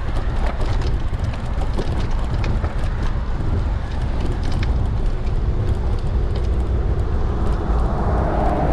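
Wind rushing over the microphone of a camera on a moving bicycle: a steady low rumble, with a faint steady hum joining about halfway through.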